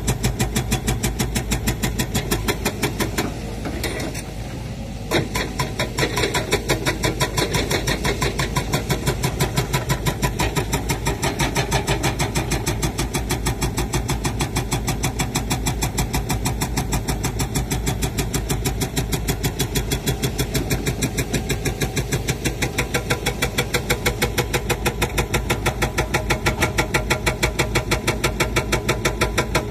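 Sumitomo SH130 crawler excavator's diesel engine running as the machine digs, with an even, rapid pulsing throb. The sound drops briefly about three to five seconds in, then returns to the same level.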